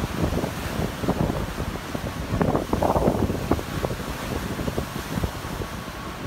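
Strong wind buffeting the microphone over the rush of surf breaking and washing in, rising in a gust about halfway through.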